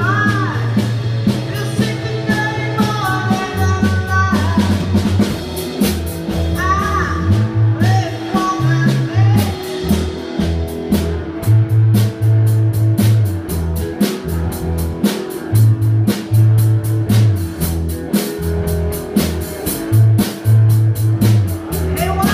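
A band playing live: female lead vocal over two electric guitars, bass guitar and drum kit. The singing comes in phrases, with stretches where only the instruments play.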